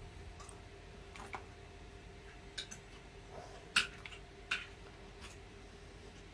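Turrón pieces being broken and handled on a tabletop: scattered light clicks and knocks, two louder ones about midway, over a steady low hum.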